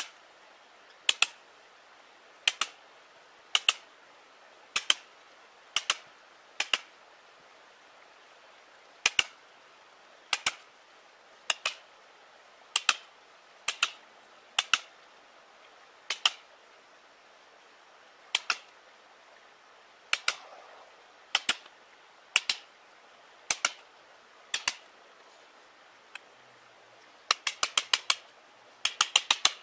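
Mallet striking a chisel cutting into a live tree trunk: sharp knocks about once a second, often in quick pairs, then a fast run of several blows near the end.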